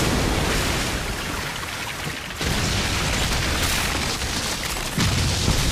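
Anime sound effect of a giant snake crashing through sea water: a dense rushing of spray over a deep rumble, surging louder about two and a half seconds in and again near the end.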